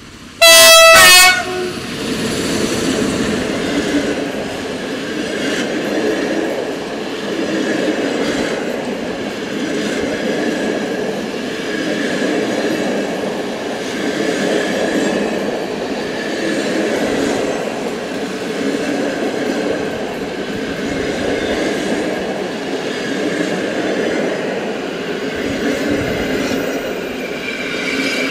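An electric locomotive gives one short, loud horn blast about half a second in, then its long train of passenger coaches runs past with a steady noise of wheels on the rails.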